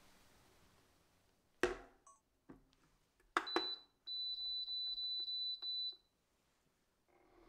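A ceramic saucepan set down on an induction cooktop with a knock, then clicks of the touch controls and a high electronic beep. A quick run of beeps follows, nearly merging into one tone for about two seconds as the heat is set, and near the end the cooktop starts to hum.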